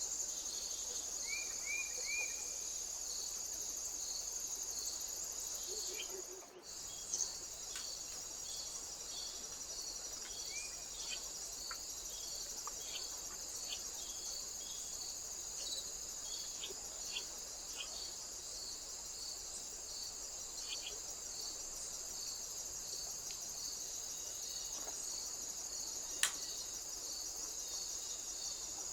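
Steady chorus of summer insects: a continuous high trill with an even pulsing beneath it. A few faint short bird chirps come through, the sound dips out briefly about six seconds in, and there is a single sharp click near the end.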